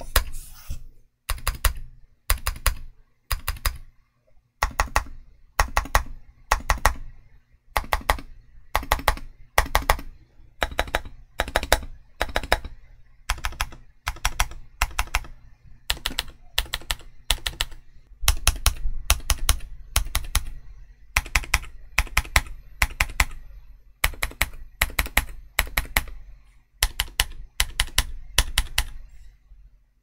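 Typing on a WK870 tenkeyless mechanical keyboard with stock Gazzew U4Tx tactile switches and Cherry-profile PBT keycaps: runs of quick keystrokes with short pauses between them.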